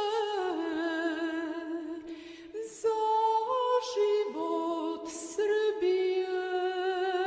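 Unaccompanied singing: a voice holding slow, sustained notes with vibrato, stepping from note to note, with a few short hissing sounds between phrases.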